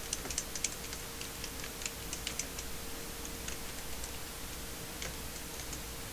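Typing on a computer keyboard: a quick run of keystrokes for about two and a half seconds, then a few scattered key presses, over a steady faint hum and hiss.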